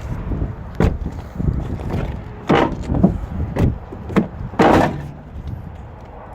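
A string of about six clunks and knocks, the loudest and longest a little over two seconds in and near three-quarters through, from the 2014 Porsche Cayenne's doors being handled and shut.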